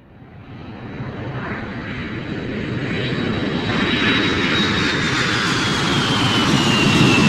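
A small aircraft's motor running, fading in and growing louder, with a high whine that slowly drops in pitch near the end.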